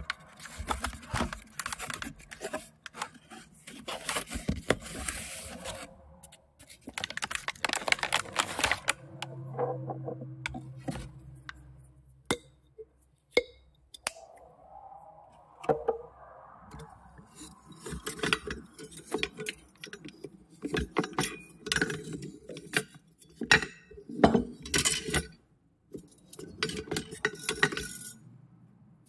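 Kitchen utensils and dishes clinking and clattering: a dense run of sharp knocks and clinks, some with brief metallic ringing, thinning out to a few scattered strikes in the middle before building up again.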